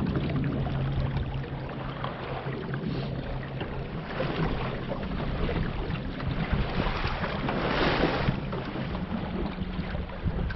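Water rushing and splashing along the hull of a small wooden sailboat under way, with wind buffeting the microphone. The rush grows louder about two-thirds of the way through, then eases.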